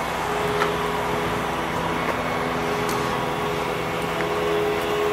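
A machine running steadily: an even mechanical hum with a few held tones.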